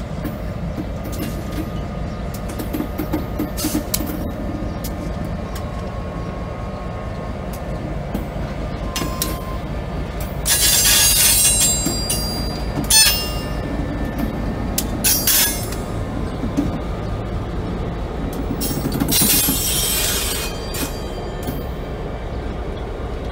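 EMD GP50 diesel locomotive's 16-cylinder engine running with a steady low beat as it slowly pulls tank cars, with loud high-pitched wheel squeal about halfway through, short squeals a little later, and another squeal near the end.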